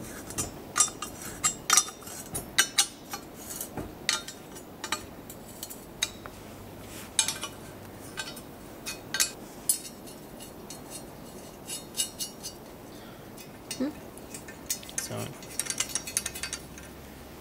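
Steel spanner clinking and clicking against the nuts and studs as nuts are wound on and tightened on the turbocharger-to-exhaust-manifold flange. The clinks come irregularly, thicker in the first half and again near the end.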